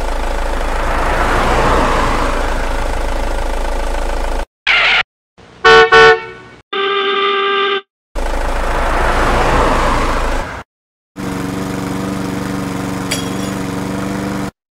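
A string of vehicle sound effects cut together: a steady engine rush with a low hum, a loud horn honk about six seconds in followed by a held horn-like tone, more engine rush, then a steady low engine hum near the end.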